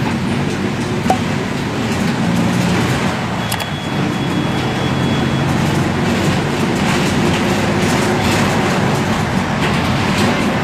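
Mercedes-Benz OF-1721 Bluetec 5 bus running, a steady low engine drone under loud rumbling noise with scattered rattles. A brief thin high tone sounds a few seconds in.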